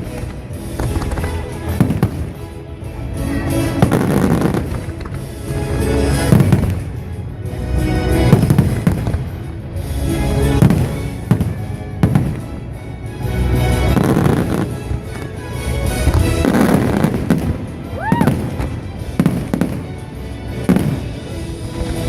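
Fireworks bursting repeatedly over loud music.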